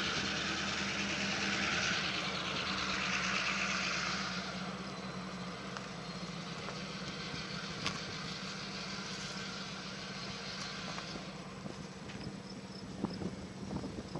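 An engine running steadily with a low hum. A hiss on top of it is strongest for the first few seconds, then eases off and mostly fades near the end.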